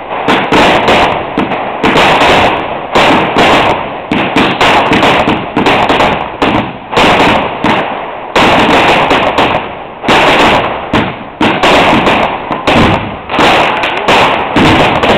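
Fireworks going off in a rapid, almost continuous barrage of loud bangs and crackling, one report on top of the next with hardly a gap.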